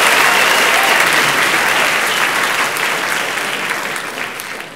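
Audience applauding, the clapping fading away toward the end.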